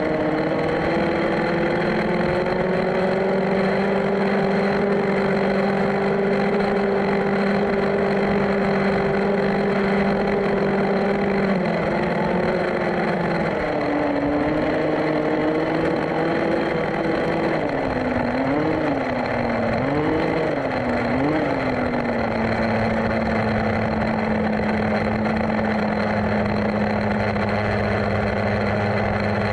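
Two-stroke petrol engine of a 1/5-scale Rovan Baja RC buggy running at a steady cruising speed. Its note drops about twelve seconds in, rises and falls three times a little later as the throttle is worked, then settles on a lower steady note.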